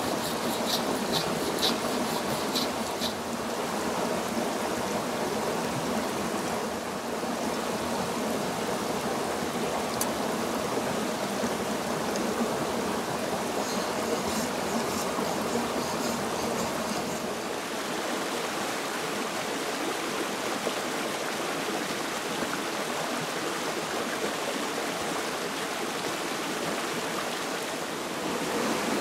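Small rocky creek running, a steady rushing of water. Short repeated scraping strokes of a knife on a whetstone come through at the start and again about halfway.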